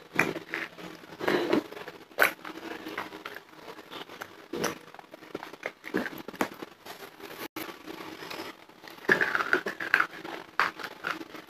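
Close-miked chewing of hard, dry clay pieces: irregular crisp crunches and mouth clicks, with louder bites about two seconds in and again near the end.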